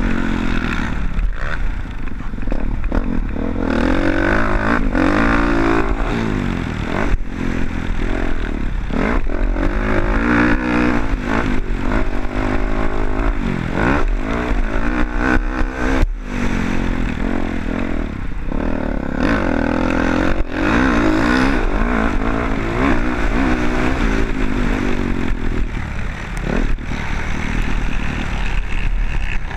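Motocross bike engine revving up and falling back over and over, its pitch rising and dropping every few seconds. Clatter and sharp knocks come now and then.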